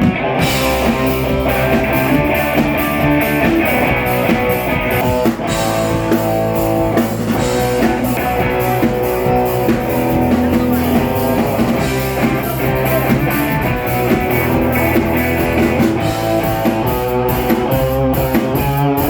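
Live rock band playing, with electric guitar over a drum kit keeping a steady beat.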